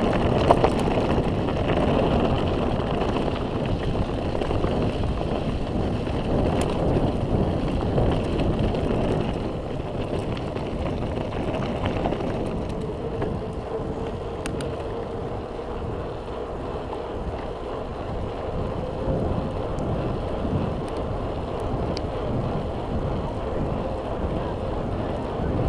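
Mountain bike rolling downhill over a dirt road: steady tyre noise and wind on the microphone, with scattered sharp clicks and rattles from the bike. It eases off a little about ten seconds in.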